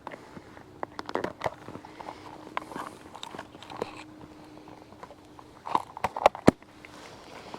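Scattered clicks and knocks at an uneven pace over a faint steady hum, with three sharp knocks in quick succession about six seconds in.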